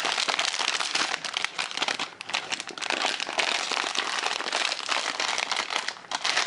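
A plastic snack wrapper and a foil sticker packet crinkling continuously as they are handled and squeezed in the hand, a dense run of fine crackles.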